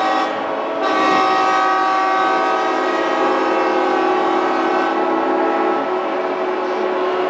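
Many yacht and boat horns sounding at once, a loud unbroken chorus of steady tones at many different pitches, dipping briefly just under a second in and then swelling again. It is a mass horn salute, every vessel in the harbour blowing together in celebration.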